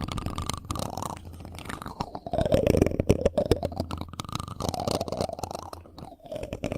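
Close-up ASMR rubbing and scratching right on a microphone, a dense crackle that swells and fades in slow strokes about every two seconds.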